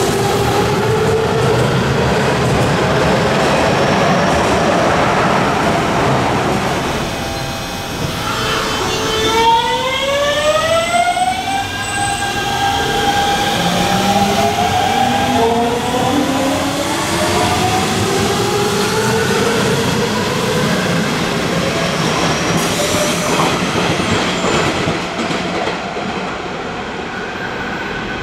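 Hanshin 5500 series train's Mitsubishi GTO VVVF inverter and traction motors accelerating: several tones climb steadily in pitch over the running noise. About a third of the way in, and again a little past halfway, the tones jump to a new pattern as the inverter changes pulse mode, then rise again.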